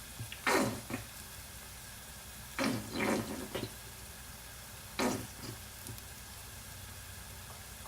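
Onion and garlic frying in oil over high heat, a steady faint sizzle, broken by five short noisy bursts in the first five seconds.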